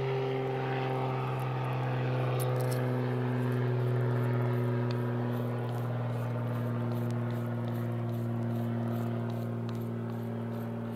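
Propeller airplane passing overhead: a steady low drone that swells to its loudest about four seconds in, then slowly fades as its pitch drifts slightly lower.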